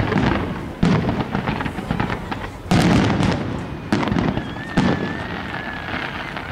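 Fireworks display: aerial shells bursting in four main booms, about a second in, near three seconds, at four and again just before five, each trailing off in a long rumble, with lighter crackling between. A faint thin whistle wavers briefly around the middle.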